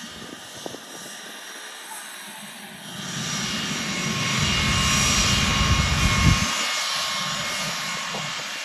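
Jet airliner passing, its engine rush swelling to a peak about five seconds in and then easing off, with a steady high whine over the roar.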